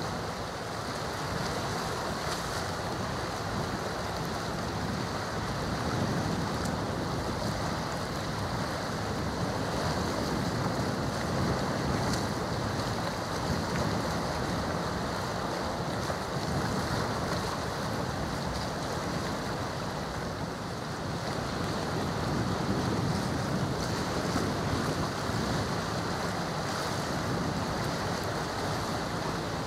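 Steady rushing wind on the microphone over the wash of seawater, with no distinct engine sound standing out.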